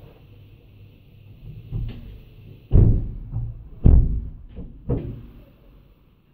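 Heavy thumps and knocks on a lorry's metal body as a worker climbs onto its side rail and handles the load, two loud bangs about three and four seconds in, with smaller knocks around them.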